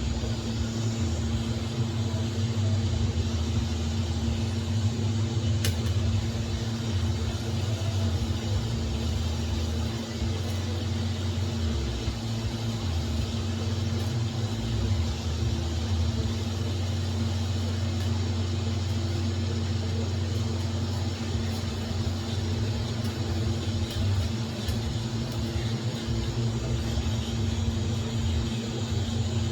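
Arc welding steel with 3/32 filler rod at about 55 amps: a steady electrical hum from the welder with a hiss from the arc. There is a single sharp click about six seconds in.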